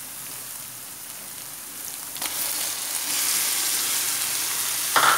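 Scrambled egg, onion and green pepper frying in oil in a pan, stirred with a wooden spoon; about two seconds in the sizzle grows louder as diced tomatoes go into the hot pan. A brief louder sound near the end.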